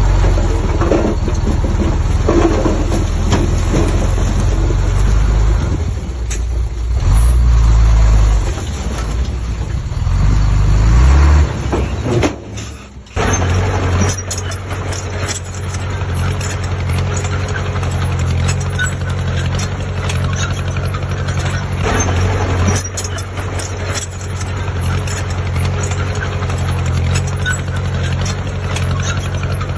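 Heavy diesel engine of earth-moving machinery running under load, revving up about ten seconds in, dropping off briefly, then settling back to a steady run.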